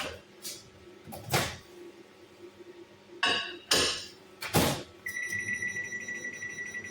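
Household objects being handled: a series of about six sharp knocks and clinks. About five seconds in, a steady high-pitched tone starts and holds for about two seconds.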